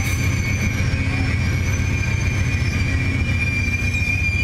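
Amtrak Superliner passenger cars rolling past with a steady high-pitched squeal from the steel wheels on the rails over a low rumble. Fainter squeals rise and fall above it.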